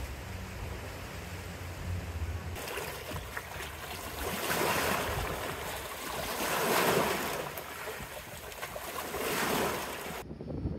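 Wind rumbling on the microphone, then small waves washing and breaking on a rocky, muddy shoreline in three swells that rise and fade over a couple of seconds each.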